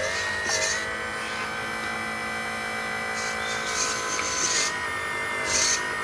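Background music: held tones with short bursts of hiss, like cymbals, at irregular moments.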